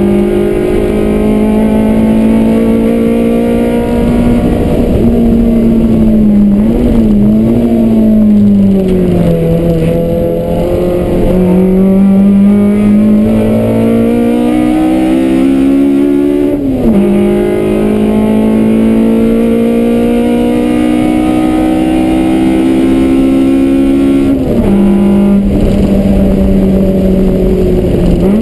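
Toyota AE86 Corolla's engine heard from inside the cabin, driven hard around a race circuit. Its note climbs steadily under acceleration and dips as the driver lifts and changes gear, with sharp drops in pitch about two-thirds of the way through and again near the end.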